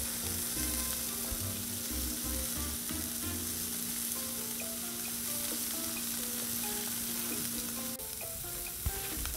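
Asparagus frying in butter and oil on a Blackstone flat-top griddle: a steady sizzling hiss.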